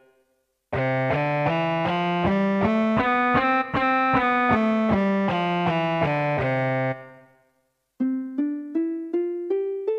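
Yamaha PSS-F30 mini keyboard playing a preset voice as a scale up and back down, each note held steady. After a short silence, a different plucked-sounding voice near the end starts climbing a scale in short notes that fade quickly.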